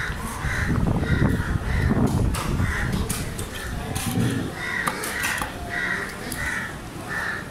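Crows cawing over and over, with a few sharp knocks of a cleaver chopping through fish on a wooden block.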